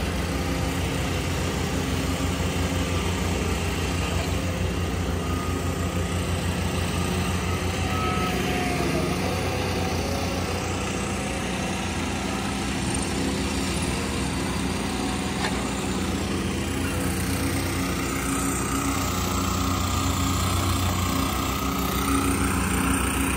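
Engines of compact construction machines running steadily, a tracked skid steer and a small tracked auger machine, with a low drone that shifts slightly in pitch as they work.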